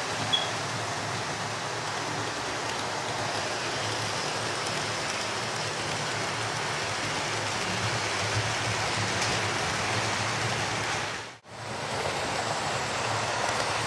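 Model railway trains running on the layout: a steady rumble and rattle of small wheels on the track and the locomotives' motors. The sound cuts out briefly about eleven seconds in.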